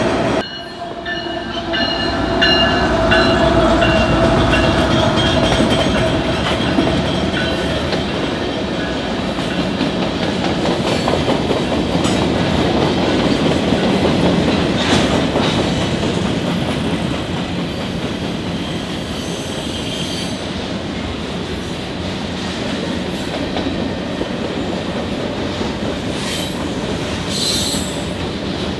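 A train rolling past close by: steady wheel-on-rail noise with clicking over rail joints and squealing from the wheels, with a higher squeal near the end.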